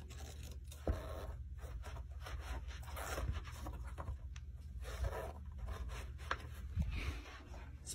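Soft, irregular shuffling footsteps of Crocs clogs on carpet, with faint scrapes and rustles.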